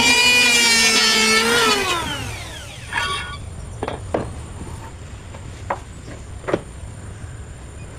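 Electric woodworking power tool motor whining loudly, then winding down with a falling pitch about two seconds in. A few sharp wooden knocks follow as the timber is handled.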